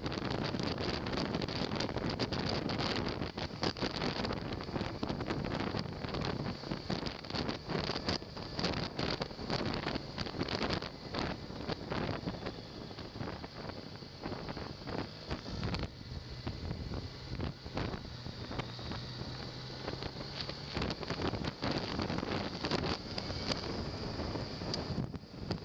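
Wind buffeting the microphone of a camera on a moving motorcycle, over the steady low hum of the bike's engine.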